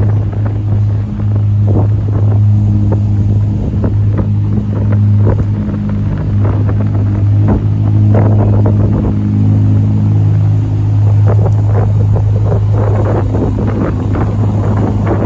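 Ferrari SF90 Stradale's twin-turbo V8 running at steady low revs as the car creeps past at walking pace, a constant deep hum.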